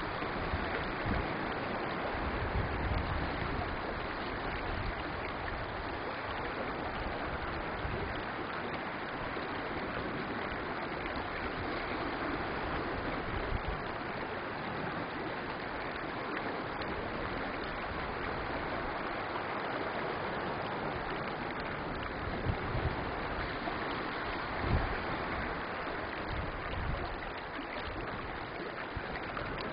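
Shallow stream water rippling steadily over pebbles, a constant gentle rush, with a few brief low rumbles of wind on the microphone.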